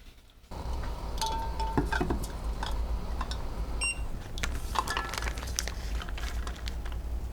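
Kitchenware clinking and knocking, one brief ringing clink near the middle, over a steady low hum.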